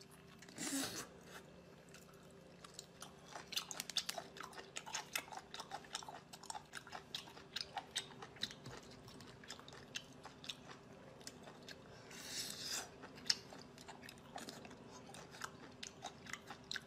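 Faint, close-up chewing and wet mouth sounds of a man eating raw octopus tentacles: irregular quick clicks and smacks. There are two brief hisses, about a second in and around two-thirds of the way through, over a faint steady low hum.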